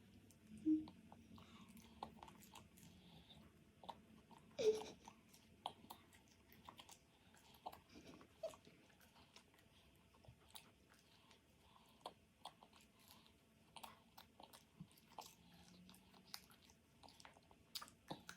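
Someone chewing French fries, with soft crunching and many small wet mouth clicks. There are two brief louder sounds, about a second in and about five seconds in, the second with a short falling pitch.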